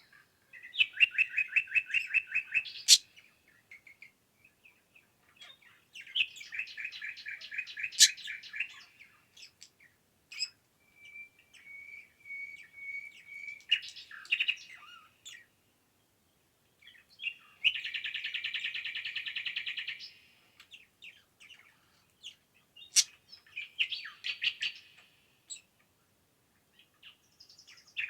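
Songbirds singing in a forest: a run of separate song phrases, each a rapid trill of quick repeated notes lasting one to three seconds, with short pauses between them.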